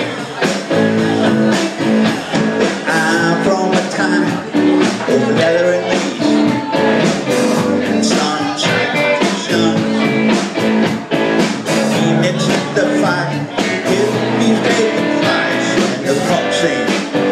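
Live rock band playing loud, driving rock and roll on electric guitars and a drum kit.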